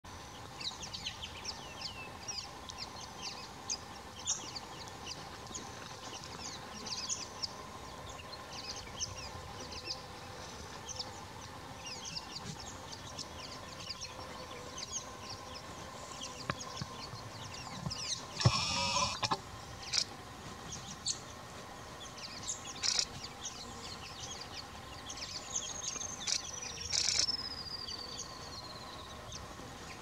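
Outdoor wildlife ambience: many short, high chirps over a few steady hums. About two-thirds of the way through there is a brief louder burst. Near the end a long whistle falls slowly in pitch over about four seconds.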